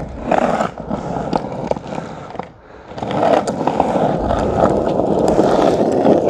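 Skateboard wheels rolling over rough alley asphalt, a continuous gritty rolling noise with small scattered clicks. It drops off briefly about two and a half seconds in, then picks up again as the board rolls on.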